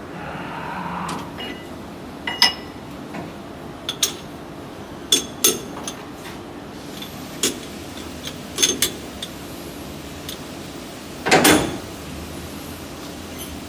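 Scattered sharp metal clanks and clinks, each ringing briefly, over a steady low machine hum; the loudest clank comes late.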